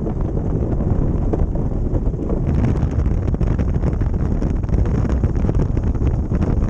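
Steady rush of wind buffeting the microphone, mixed with the rumble and scrape of the ice boat's runners on the ice as it sails, with a light crackle of small ticks throughout.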